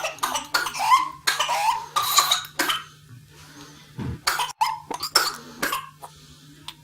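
Whooping-cough (pertussis) coughing fit: cough after cough in quick succession for about three seconds, then a second cluster of coughs about four seconds in.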